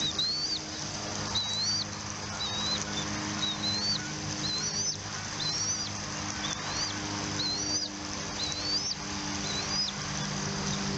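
Bald eagle giving a series of high, thin chirping calls, about one a second, each note rising and then dropping, over a steady low hum.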